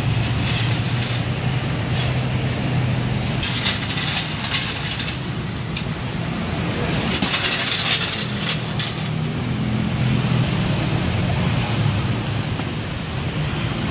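Short hisses of an aerosol spray on a bare wheel hub, then metallic clinking of wheel nuts as an alloy wheel is fitted onto the hub by hand, over a steady low hum.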